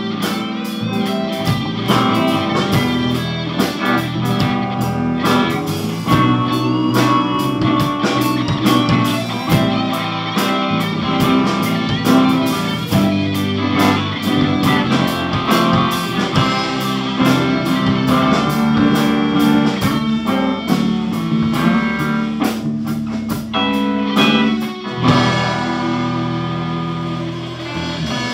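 Live band playing an instrumental blues-rock passage: electric guitar over bass guitar and drum kit. Near the end the cymbals stop and the playing thins out.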